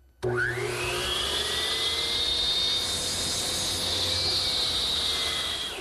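Power miter saw starting with a rising whine and running at speed while it chamfers the end of a wooden mallet shaft at 45 degrees; the sound fades near the end.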